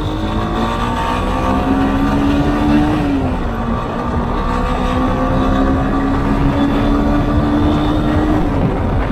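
A 200cc single-cylinder dual-sport motorcycle engine accelerating. It rises in pitch, drops at an upshift about three seconds in, then climbs slowly and shifts up again near the end, over a steady low wind rumble.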